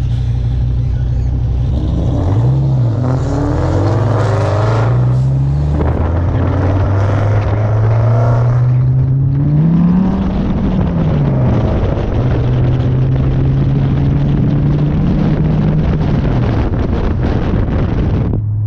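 Car engine pulling and easing off several times on the road, its pitch climbing and dropping, over steady road and wind noise.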